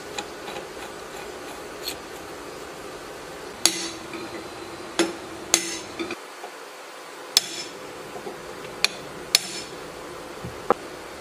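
Hammer blows on a metal rod set against the hub nut of a small engine's flywheel: about seven sharp, irregularly spaced metallic strikes, some with a brief ring.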